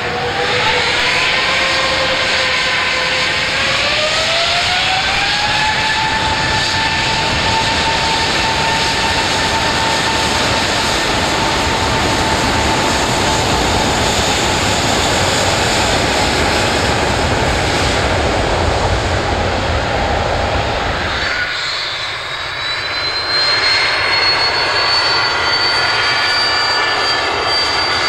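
Airbus A380's four jet engines spooling up to takeoff power: a whine that climbs in two steps, then holds steady over a heavy rumble. About 21 seconds in it gives way to a small Cessna Citation business jet's engines, a higher, thinner whine that rises slowly as the power comes up.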